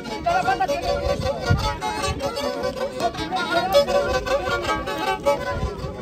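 Black Sea kemençe played with the bow in a quick horon dance tune, rapid running notes.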